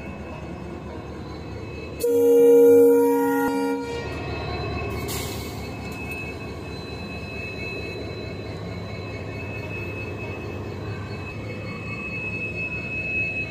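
Indian Railways diesel locomotive hauling a ballast train past at close range: a steady rumble of engine and rolling wheels, with a loud blast of the locomotive's horn about two seconds in, lasting about two seconds. A thin, steady high whine runs under the rumble for the rest of the passage.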